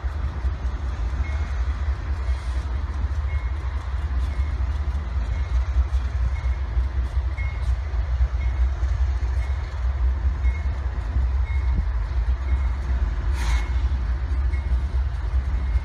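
Freight train with diesel locomotives moving through a rail yard: a steady low rumble with a faint high tone repeating about twice a second, and one sharp clank near the end.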